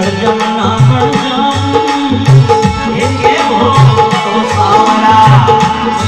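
Dholak drumming a steady folk rhythm, about two deep bass strokes a second with lighter strokes between, under a man singing.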